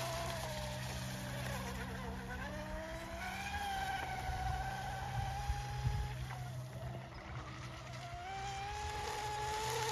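Electric motor of a radio-controlled racing boat running across the water: a faint high whine that falls and rises in pitch a couple of times as the boat changes speed.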